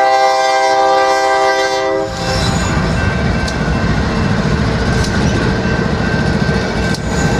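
BNSF diesel locomotive air horn sounding a chord for about two seconds and then cutting off, followed by the steady rumble of three light engines passing over the grade crossing, with a few sharp clicks from the wheels.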